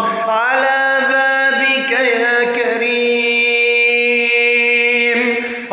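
Male voice singing an Arabic devotional chant (nasheed) in a long melismatic passage: ornamented runs of notes, then a long steady held note that ends near the end.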